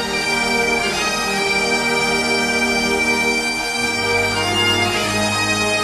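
Great Highland bagpipes playing a melody over their steady drones, holding one high note for about two seconds starting about a second in.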